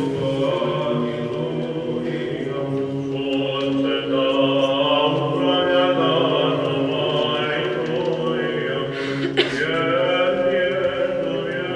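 Orthodox church chant sung by male voices over a steady held drone note, the melody moving slowly in long notes. A single brief knock sounds about nine and a half seconds in.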